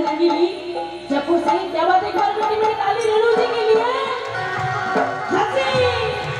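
Live Rajasthani folk song through a PA system: a woman singing an ornamented, bending melody, accompanied by a hand drum and other instruments.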